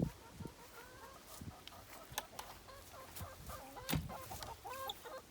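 Broody hen sitting on eggs, clucking in a string of short calls, with a few sharp knocks, the loudest about four seconds in.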